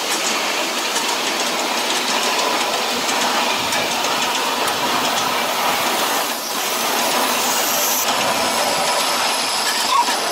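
Ride-on miniature steam railway train running along the track, with a steady hiss and rumble of the cars rolling on the rails, faint ticks in the first half, and one sharp click near the end.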